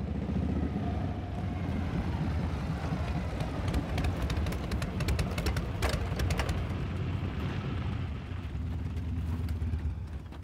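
A group of motorcycles rumbling as they ride in, the engine sound swelling early and dying away near the end.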